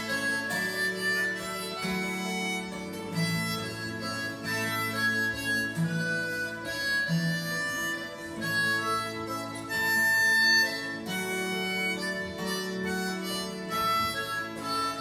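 Harmonica playing a melody over a twelve-string acoustic guitar accompaniment, live. A loud held high harmonica note about ten seconds in is the loudest moment.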